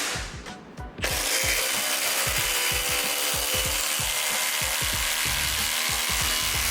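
Cordless impact driver hammering a lag bolt into stacked OSB, a rapid run of impact blows under load. It stops briefly about half a second in, then starts again and keeps driving.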